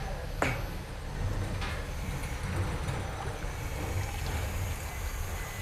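Steady low rumble, with a metal ladle stirring chocolate liquid in a large stainless steel pot, clinking faintly against it about half a second in.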